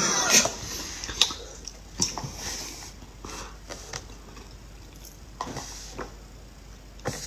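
Wet sucking and slurping through a plastic straw stuck into a large sea cucumber, drawing out its fluid: a string of short, irregular sucks and smacks, louder in the first second or two.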